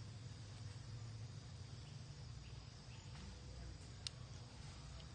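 Faint outdoor ambience: a steady high insect buzz with a low steady rumble underneath, and one short sharp click about four seconds in.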